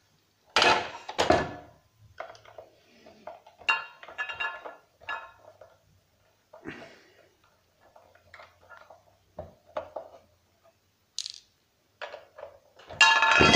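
Screwdriver work on metal screws in a turntable's base: scraping, clicking and light metallic clinks as screws are turned and handled. Near the end a loose steel screw drops onto a ceramic tile floor with a sharp clatter and a ringing note.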